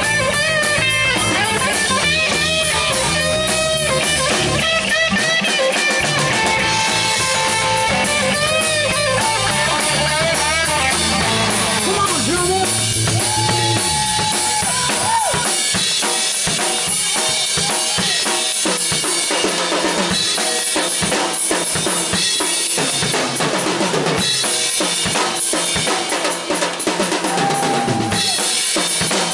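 Live rock band playing an instrumental section: electric guitar lead with bending and held notes over bass guitar and a drum kit. About halfway through, the drums come to the fore as the low bass thins out.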